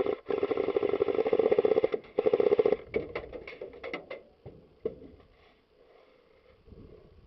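Airsoft electric AK rifles (AEGs) firing full-auto: long continuous bursts with a rapid buzzing rattle, then shorter bursts and single shots about three to four seconds in, tailing off to a last click near five seconds.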